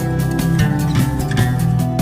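Background music with a steady beat: drums over sustained instrumental notes.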